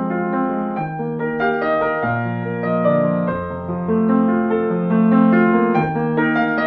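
Slow, soft piano music: held chords and notes changing about once a second.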